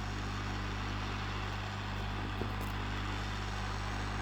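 Hot-air rework station blowing steadily, a continuous airflow hiss over a low hum, while it heats the board to melt the solder under the old LCD. A faint tick about two and a half seconds in.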